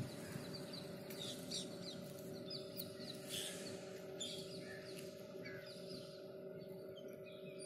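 Outdoor birdsong ambience: several birds calling with short, repeated high chirps, over a faint steady hum.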